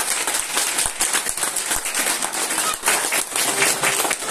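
Audience applauding: many hands clapping together in a dense, steady clatter.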